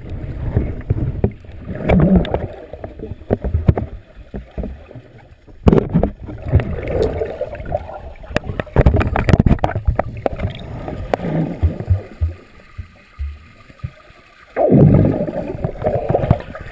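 Muffled underwater churning and bubbling from a swimmer's strokes, heard through a GoPro held underwater in a pool. The sound surges irregularly, with scattered sharp knocks and a strong surge of churning near the end.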